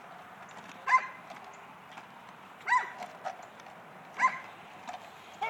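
Dog barking three single barks, about a second and a half apart, as it is held back for bite work facing the decoy.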